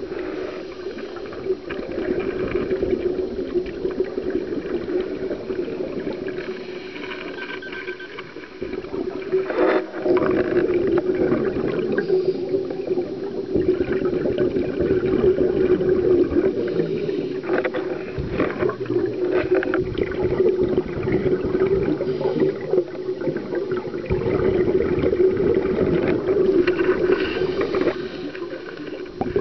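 Underwater sound picked up through a sealed camera housing on a scuba dive: a steady low hum with gurgling bubbles and scattered crackles, louder in the middle stretch.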